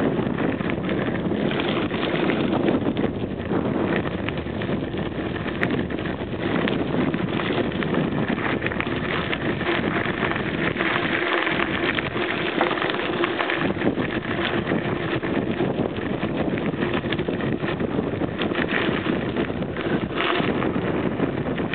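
Wind buffeting the microphone of a camera carried on a moving bicycle, over the steady crunch and rattle of tyres rolling on a gravel path.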